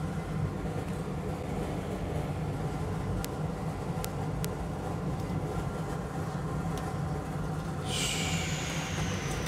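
A steady low mechanical hum with faint steady tones above it, a few faint clicks in the middle, and a hiss with a slowly falling high whine that starts about eight seconds in.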